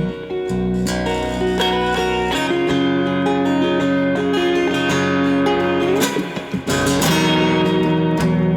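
Instrumental break of a song: guitar strumming and picking chords, with other sustained pitched instruments.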